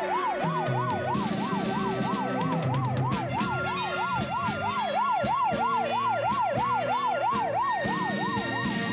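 Police siren wailing rapidly up and down, about three times a second, over background music; it stops near the end.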